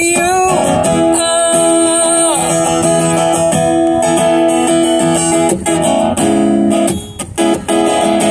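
Steel-string acoustic guitar strummed through a busker's amplifier, chords ringing on and restruck every second or so, with a brief break in the strumming around seven seconds in.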